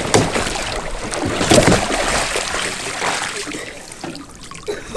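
Water splashing and sloshing as a sea kayak is rolled back upright with a wooden Greenland paddle sweeping through the water, finishing forward onto the front deck. It is loudest about a second and a half in, then dies away.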